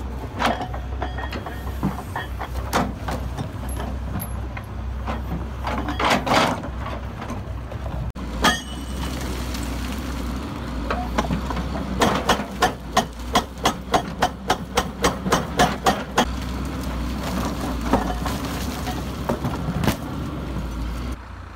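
Caterpillar 322C excavator's diesel engine running steadily while its hydraulic breaker hammers concrete. Scattered single blows come first, then a rapid run of about four blows a second for several seconds past the middle, followed by a few more single blows.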